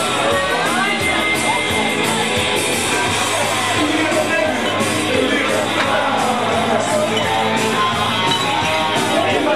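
Loud rock music with singing, and people in a packed bar shouting over it.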